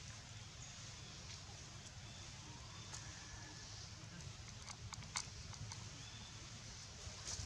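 Dry leaf litter crackling in scattered clicks as macaques move about on it, with a cluster of sharper clicks about five seconds in, over a faint steady low rumble.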